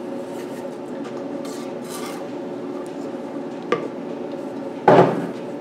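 Short hissing spurts from a WD-40 aerosol can spraying through its straw into a small plastic bottle of oil, thinning the oil for a fuel mix. Near the end comes one sharp knock, the loudest sound.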